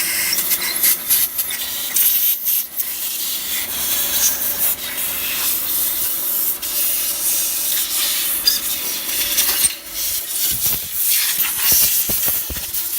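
Old gasket being sanded off the SLXA transmission case's mating face: continuous rough abrasive rubbing that starts and stops abruptly.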